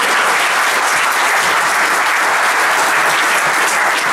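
A conference audience applauding steadily at the end of a talk.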